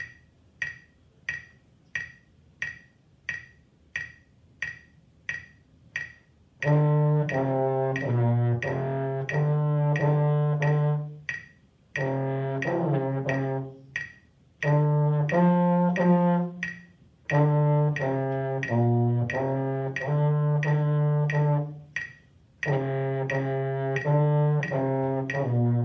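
Metronome clicking steadily at about 90 beats a minute; about a quarter of the way in, recorded accompaniment music joins it: held chords with a strong low bass line, in phrases of a few seconds with short breaks, the clicks continuing throughout.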